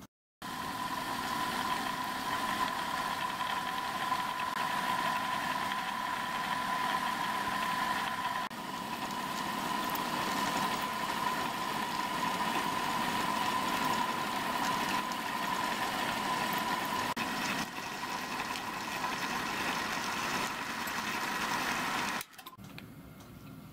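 Milling machine running steadily with a high whine while drilling an angled passageway into a pump casting. It starts abruptly just after the beginning, dips briefly twice, and cuts off near the end.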